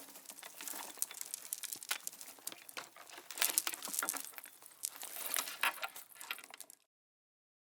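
Christmas-tree ornaments being handled: a busy run of small clinks and rattles of hard ornaments knocking together. It stops about seven seconds in.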